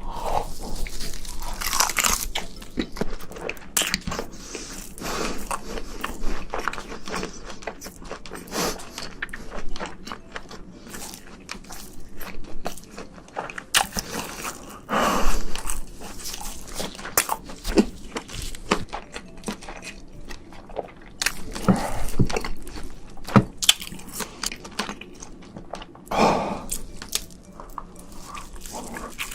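A person biting into and chewing giant tiger prawn, with many irregular crunches and wet chewing sounds.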